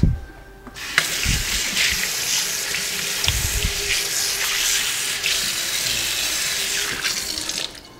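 Kitchen tap running water into a sink in a steady gush. It starts about a second in and is cut off sharply just before the end, with a couple of low knocks along the way.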